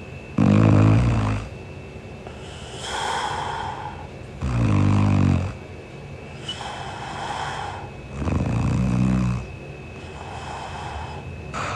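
A woman snoring in her sleep: three loud, low snores on the in-breath, about four seconds apart, each followed by a softer breath out.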